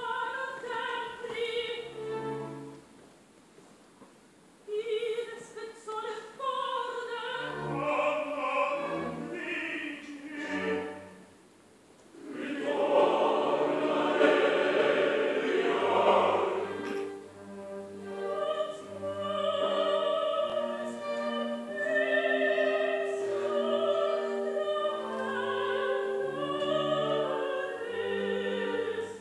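Live bel canto opera: soprano voice with orchestra and a women's chorus. There is a brief lull a few seconds in, and the fullest, loudest passage comes about halfway through.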